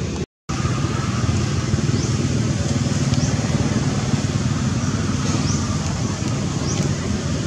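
Steady low rumble of outdoor background noise with short, high, rising chirps every second or two. The sound cuts out completely for a split second just after the start.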